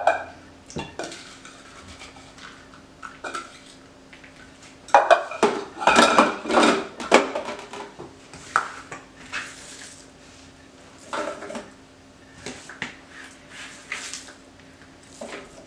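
A spoon clinking and scraping against a glass measuring cup and a stainless steel mixing bowl as chopped cabbage is scooped and emptied. The sound comes as scattered clicks, with a dense run of clatter about five to seven seconds in.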